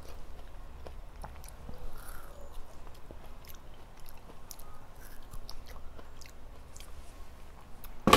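Close-miked biting and chewing of juicy cantaloupe flesh, with many small wet mouth clicks. A single sharp knock comes right at the end.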